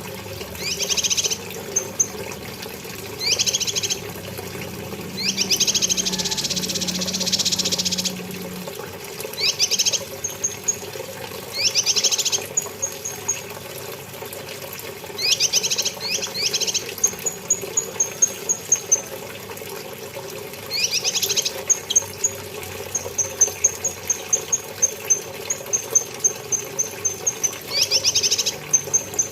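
Cucak kinoi singing: short bursts of fast, sweeping trilled notes every couple of seconds, alternating with runs of thin, high, evenly spaced chips. A steady low hum lies underneath.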